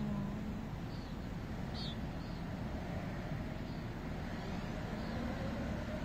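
Steady road traffic noise from passing cars, with a brief high chirp about two seconds in.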